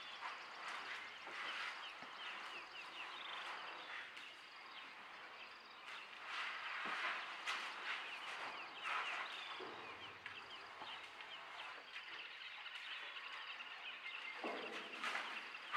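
Outdoor morning ambience of many wild birds chirping and calling over a faint steady insect drone.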